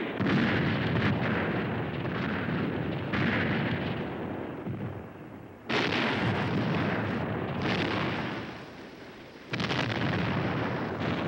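Artillery fire from howitzers: three heavy booms, one at the start, one about halfway and one near the end, each followed by several seconds of rolling rumble.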